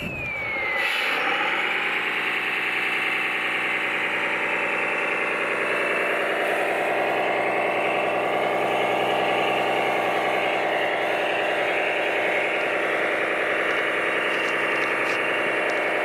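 Radio-controlled model Kirovets K-700 running: a steady, many-toned mechanical drone with a high whine that falls in pitch in the first second and begins falling again at the very end.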